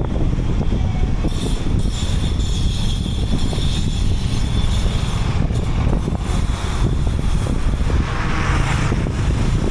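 Wind buffeting the microphone in a continuous, uneven low rumble, mixed with street traffic.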